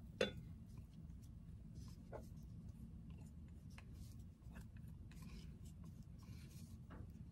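Faint scraping of a spatula against a glass mixing bowl as batter is poured into a mini rice cooker's pot. There is a sharp click just after the start and a few lighter ticks later.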